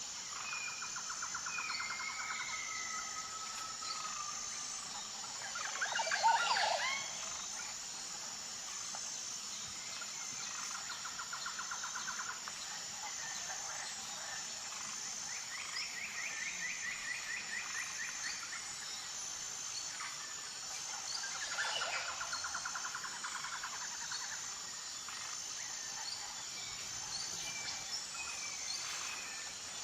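Forest birds whistling and trilling, with pulsing trills repeating throughout over a steady high-pitched insect buzz. A louder call sweeps down in pitch about six seconds in, and another near twenty-two seconds.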